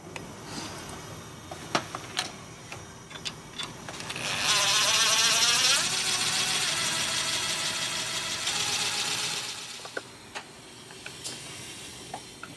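Handheld air tool running for about five seconds: it spins up with a rising whine over a loud hiss, holds steady, then eases off and stops. A few small metal clicks and taps come before it and after it.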